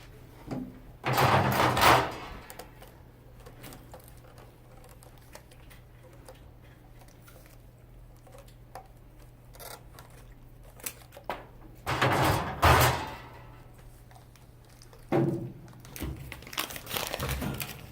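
Drink bottles and cans being handled and loaded into a vending machine's slots: three bursts of clattering and rustling, about a second each, over a steady low hum.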